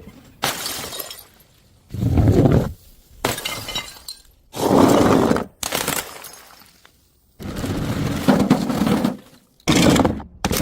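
Glass bottles smashing one after another, about six sudden crashes, each followed by a short spray of shards; one crash a little past halfway rattles on for nearly two seconds.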